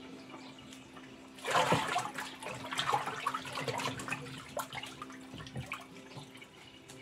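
Water rushing and gurgling inside a Praxis twin-tub washing machine, loudest from about a second and a half in, over a steady low hum.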